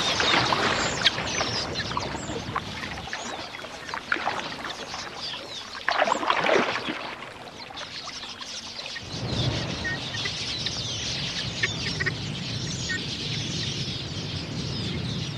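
Crocodile splashing as it lunges through the water at drinking birds, fading over the first few seconds, with another splash about six seconds in. About nine seconds in, the chirping and fluttering of a large flock of red-billed queleas rises and carries on.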